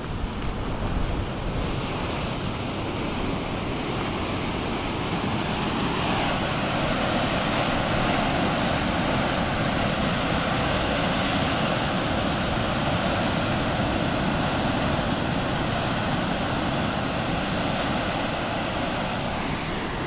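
Heavy ocean surf breaking on a concrete-block breakwater: a continuous rushing wash of waves that swells slightly about six seconds in, with wind buffeting the microphone.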